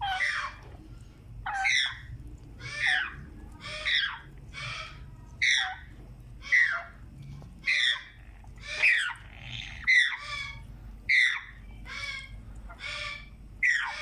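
African grey parrot chicks giving harsh squawking calls, one about every second, each call falling in pitch.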